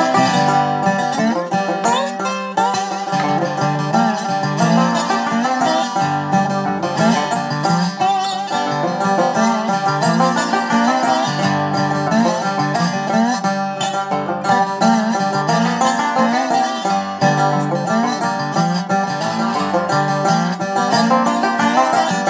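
Background music: quick plucked-string playing on banjo and guitar in a bluegrass style.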